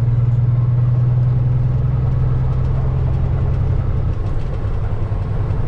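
Semi truck's diesel engine heard from inside the cab while driving slowly, a steady low drone that eases off about four seconds in as the truck slows for a turn.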